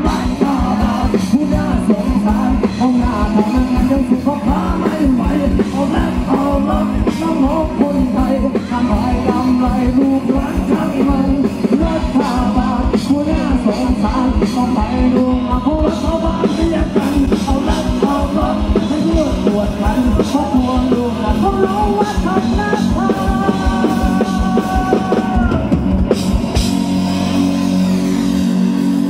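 Live rock band playing through a PA system: drum kit, electric guitar and bass, with singing.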